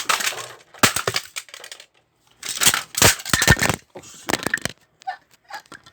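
Hard plastic parts of a toy remote-control car clattering and scraping as it is taken apart by hand, in several rough bursts, then a few small clicks near the end.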